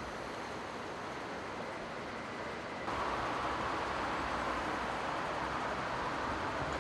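Steady outdoor noise, a rushing hiss over a low rumble, that jumps louder at a cut about three seconds in.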